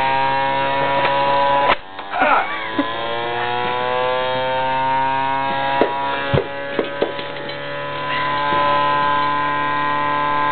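Old pitching machine's motor and wheels running with a steady whine. About two seconds in, a sharp knock briefly interrupts it, followed by a short voice. More knocks come a few seconds later.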